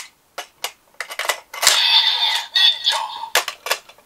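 Plastic clicks as Full Bottles are slotted into a DX Build Driver toy belt, mixed with the belt's electronic sound effects.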